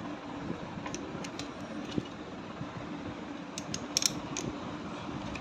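Scattered metallic clicks and taps of an open-end spanner fitting onto and turning a bolt on a motorcycle engine, the loudest cluster about four seconds in.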